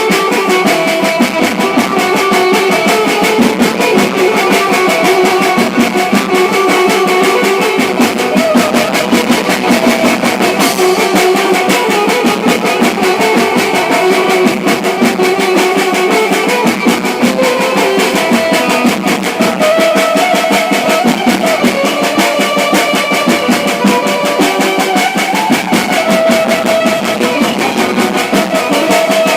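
Loud music with a steady drum beat and melodic lines, played through a hired sound system.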